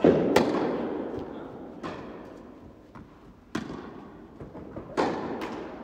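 Tennis ball being struck by racquets and bouncing on the court in a rally: about six sharp pops, the loudest near the start, each ringing out in the echo of an indoor tennis hall.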